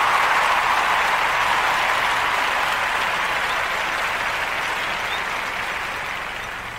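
Applause sound effect closing a podcast, a dense crowd clapping that fades out gradually.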